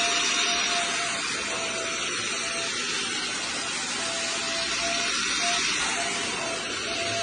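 Hydro (water-filtration) vacuum cleaner running: a steady rushing hiss with a faint whine.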